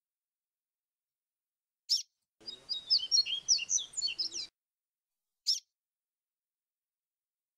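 Papa-capim seedeater singing in the fluting "grego flautado" style: a short sharp call, then a phrase of about two seconds of quick, clear whistled notes, then another single short call.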